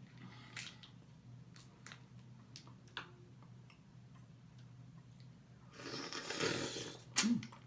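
Close-miked eating sounds: wet lip smacks and chewing clicks at irregular intervals. About six seconds in there is a louder rushing noise lasting about a second, then a sharp smack. A steady low hum runs underneath.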